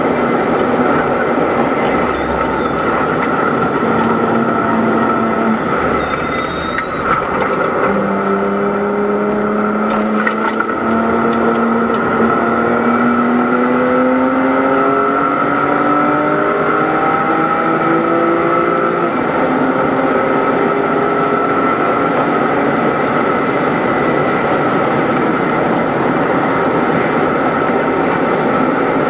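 In-car sound of a BMW E90 325i race car's straight-six engine under power, over steady wind and road noise. The engine note drops about five seconds in, climbs slowly for around ten seconds from about eight seconds in, then holds a steady high pitch.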